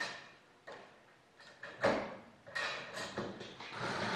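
A handful of short, irregular knocks and clicks from handling the steel fuselage tubing and a screw on the worktable as the tube is set in place for screwing down.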